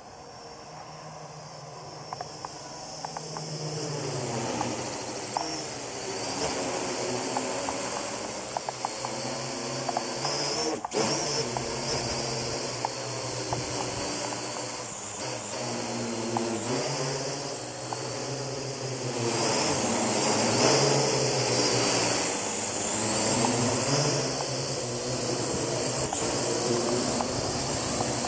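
Parrot AR.Drone 2.0 quadcopter's four electric motors and propellers whining in flight, the pitch wavering up and down as the motors change speed. It grows louder as the drone comes closer and lower, loudest in the second half. There is one sharp click about eleven seconds in.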